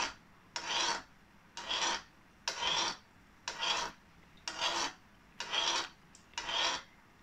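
Metal spoon scraping along the inside of a metal kadhai of hot oil in even strokes, about one a second. The oil is being stirred around the side so that the frying gulab jamun balls keep turning and brown evenly.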